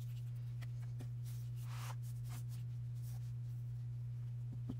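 Faint rustling and light taps of hands handling paper and cut lace appliques on a craft table, over a steady low hum.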